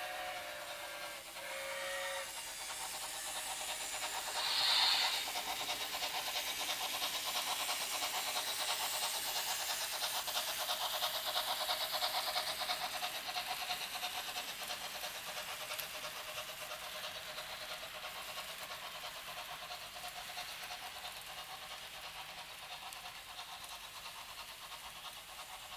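Märklin H0 model of a class 10 steam locomotive, its sound decoder giving two short whistle blasts, then a short hiss of steam, then rapid rhythmic chuffing with running noise as the train passes close and slowly draws away.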